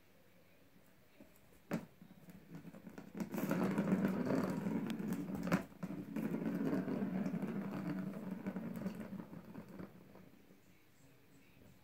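Plastic ball rolling around the circular track of a cat's ring-track toy, a steady rumble that builds from about three seconds in and dies away near the end. A sharp knock comes just before the rolling starts and another in the middle.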